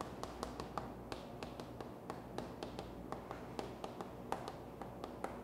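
Chalk writing on a chalkboard: an uneven run of quick taps and short strokes as characters are written.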